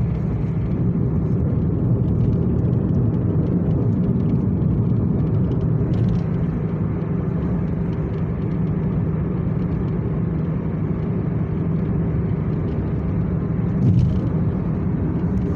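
Steady low drone of road and engine noise inside a moving car. There is a brief louder bump about fourteen seconds in.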